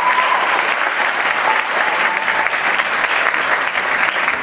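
Audience applauding steadily, a dense clapping from many hands.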